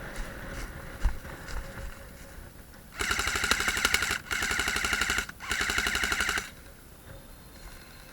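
Airsoft gun firing on full auto in three bursts of about a second each, separated by two short pauses, a rapid run of shots.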